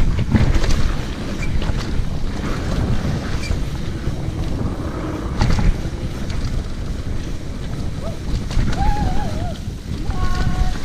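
Mountain bike descending a rough trail: wind rushing over the camera microphone, with the clatter and knocking of the tyres, chain and suspension over the ground.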